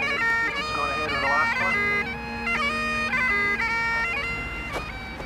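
Great Highland bagpipe playing a tune: the chanter melody moves in quick steps over steady drones. It fades somewhat near the end.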